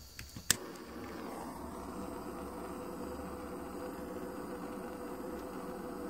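Small handheld blowtorch lit with one sharp click about half a second in, then burning with a steady hiss as its flame is played on a glass bottle.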